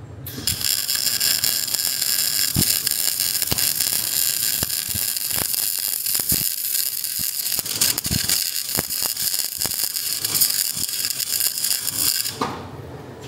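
Angle grinder running against the steel of a leaf spring, a high steady whine with scattered sharp ticks and clicks, starting abruptly just after the start and cutting off about a second before the end.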